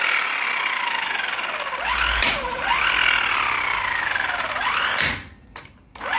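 12-volt impact wrench running on a car's lug nuts in trigger bursts. Its motor whine rises quickly and then sags slowly in pitch, twice, then stops about five seconds in.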